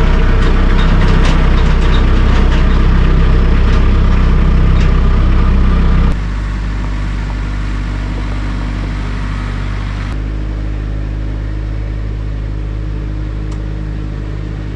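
An engine running steadily, loud at first and then dropping suddenly to a lower, steady level about six seconds in.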